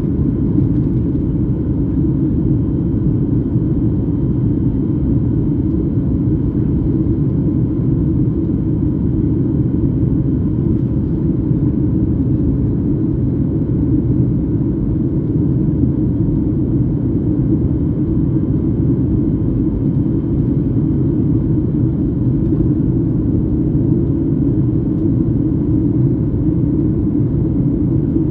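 Steady low drone inside a jet airliner's cabin in flight: engine and airflow noise, unchanging throughout.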